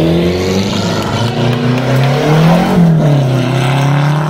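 Rally car's engine accelerating hard out of a corner and away, its pitch rising, then dropping at a gear change about three seconds in before it holds steady.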